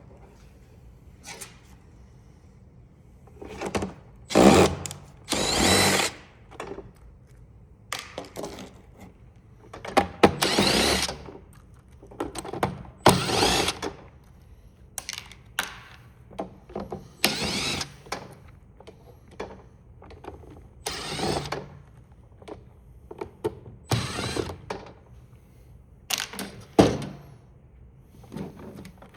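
A power screwdriver run in short bursts of a second or less, about eight times, backing screws out of a calculator's plastic case, with smaller clicks and knocks of plastic parts in between.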